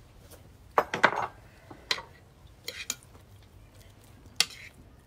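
Utensils and dishes clinking and knocking as food is handled and dished up: a handful of separate sharp knocks, the loudest pair about a second in.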